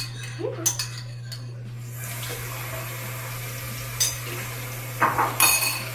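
Kitchen sink tap running, starting about two seconds in, with water splashing over dishes being rinsed. A few sharp clinks of dishes come in the first second or so.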